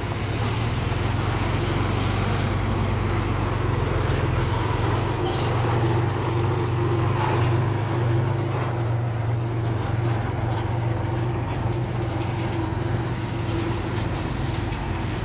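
Heavy diesel engine of earthmoving equipment running steadily under load, a deep, even engine drone.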